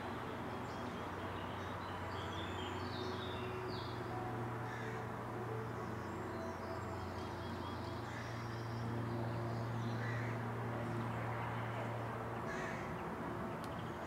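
Outdoor background: a steady low hum with scattered faint bird calls, harsh cawing calls among them.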